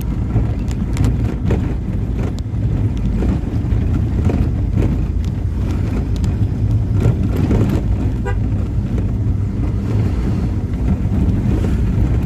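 Car driving on a rough, patched asphalt road, heard from inside the cabin: a steady low rumble of engine and tyres with scattered knocks and rattles from bumps, and a brief tone about eight seconds in.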